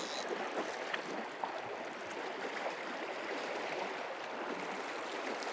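Steady rush of flowing river water, with a couple of faint ticks about a second in.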